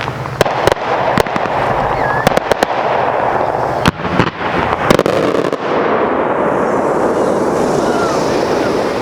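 Display fireworks going off: a rapid, irregular series of sharp bangs over a continuous din. The bangs stop a little past halfway, while the din keeps going.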